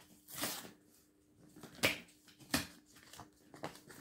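Clear plastic wrap around a gift box crinkling and crackling as it is handled and pulled open, in four short bursts.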